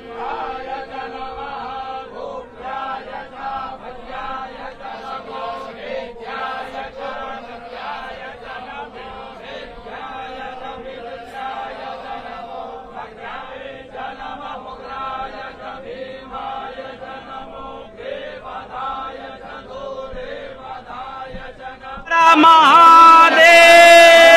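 Male priests chanting Hindu puja mantras in rhythmic unison, sounding dull and thin. About 22 seconds in this breaks off, and a much louder sound of held, loud voices cuts in.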